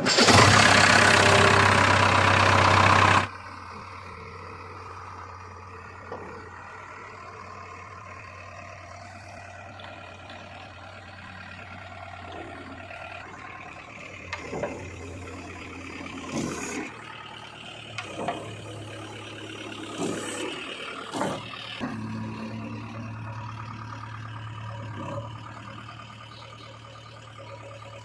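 Diesel engine of a backhoe loader or tractor running steadily, with a loud rushing burst for the first three seconds and several short clunks later on.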